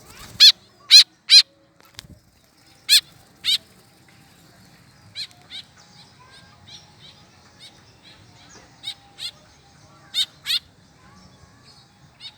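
White-breasted woodswallow (kekep) giving short repeated calls in twos and threes, loudest in the first few seconds and fainter later.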